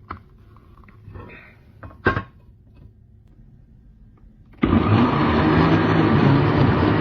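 A couple of sharp knocks, then about four and a half seconds in a countertop blender's motor switches on suddenly and runs steadily and loudly.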